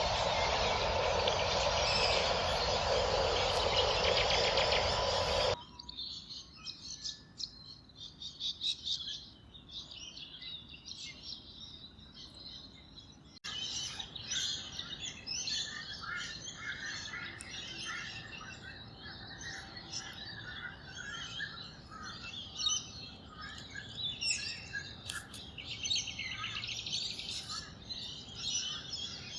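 A loud, even rushing noise for about the first five seconds, which cuts off suddenly. Then small birds chirping and calling, thin at first and becoming a dense chorus of many birds after about thirteen seconds.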